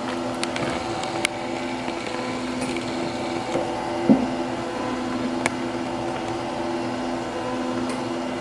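Small electric motor whirring steadily as it turns the moving bells in a model mission's bell tower, with a few light clicks from the mechanism.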